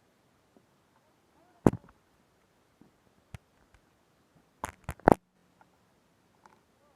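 A few sharp clicks and knocks: one loud knock about a second and a half in, a lighter click in the middle, and a quick run of three knocks near the end.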